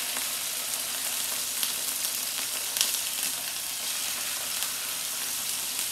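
Marinated swordfish steaks sizzling in a hot oiled skillet as they are laid in: a steady frying hiss with a few sharp crackles.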